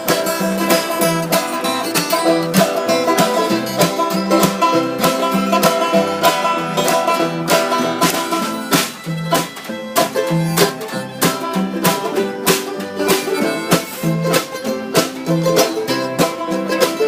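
Bluegrass band playing an instrumental passage: rapid picked banjo over guitar, with a steady pulsing bass line.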